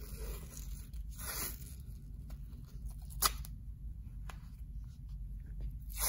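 White athletic tape being pulled off the roll and torn by hand for closure strips: a few short rips with small crackles and clicks as the strips are laid on.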